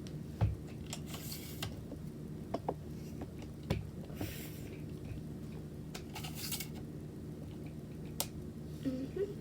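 Handling noise of a camera tripod being set up: scattered clicks and knocks from its parts, and three brief rustling or sliding sounds, over a steady low hum.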